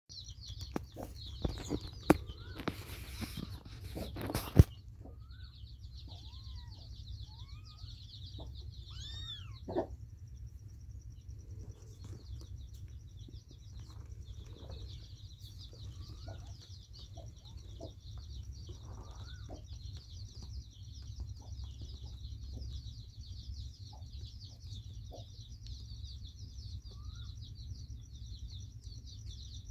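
Young kittens mewing in short, high calls that rise and fall, several times and spread out, over a steady background of many birds chirping. The first few seconds hold loud rustling and knocks, ending in a sharp knock.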